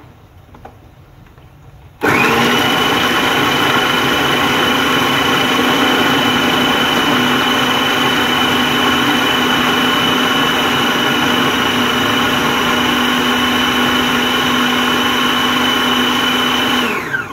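Electric food processor motor and blade running at one steady speed with a constant whine, chopping quartered onions roughly rather than to a paste. It switches on about two seconds in and runs about fifteen seconds before stopping just before the end.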